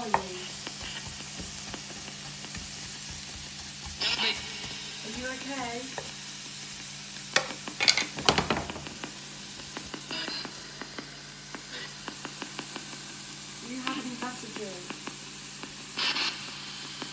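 A spirit box sweeping through radio stations: a steady static hiss broken every few seconds by brief chopped fragments of radio voices, with a cluster of sharp clicks about halfway through.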